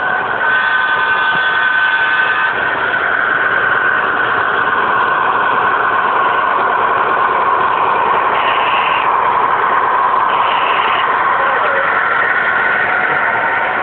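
Model diesel locomotives running on three-rail O-gauge track: a steady rolling rumble of wheels and motors, with a steady high hum running through it.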